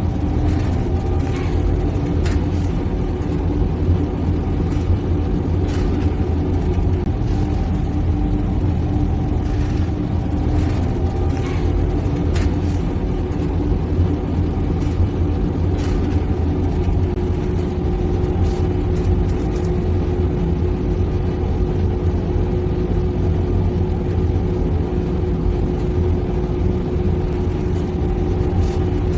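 A car running: a steady low engine-and-road rumble with a faint constant hum, and scattered light clicks over it.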